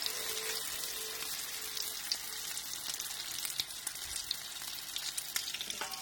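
Brik pastries frying in a pan of hot oil: a steady sizzle with scattered crackling pops.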